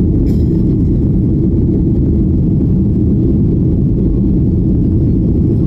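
Jet airliner during takeoff: steady low rumble of the engines and rushing air.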